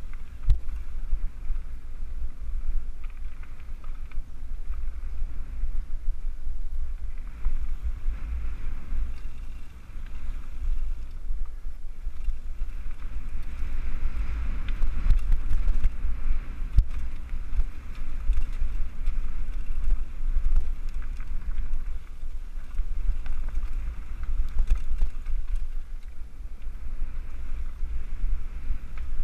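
Wind buffeting a helmet-mounted camera's microphone over the rumble and rattle of a mountain bike riding down a dirt trail, with a few sharp knocks from bumps.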